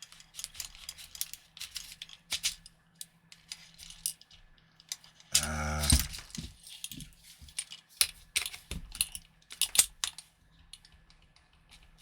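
Irregular clicks, knocks and rattles of metal and plastic parts being handled and fitted together on an airsoft rifle, with a brief voiced sound about five and a half seconds in.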